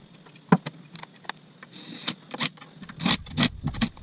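Metal clinks and knocks of bolts and a socket tool being handled and set against the engine's clutch housing: about eight sharp, unevenly spaced clicks, with a brief hiss a little before two seconds in.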